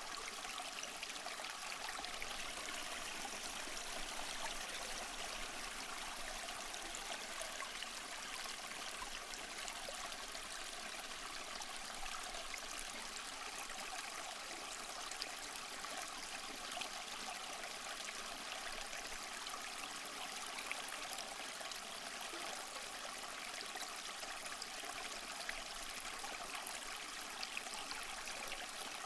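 Small mossy waterfall splashing and trickling steadily, water spattering over rocks.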